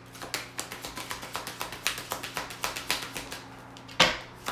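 A deck of tarot cards being shuffled by hand, a quick run of soft card clicks, then one sharp knock about four seconds in as the deck is struck on the wooden table.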